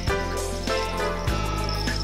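Background music: sustained notes over a bass line that shifts to a new note about a second in.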